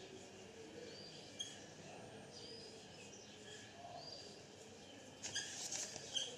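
Faint, repeated short bird chirps, a quick rising-and-falling note every second or so. A second of scratchy noise comes near the end.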